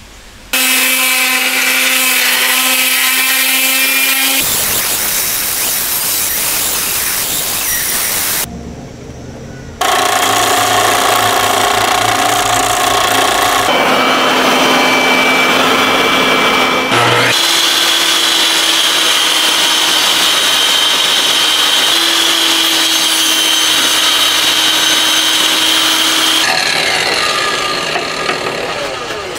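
A series of electric woodworking power tools, saws and sanders, running on teak strips. Each run is a loud, steady whir with its own hum and changes every few seconds, with a brief lull about eight seconds in. The sound winds down near the end.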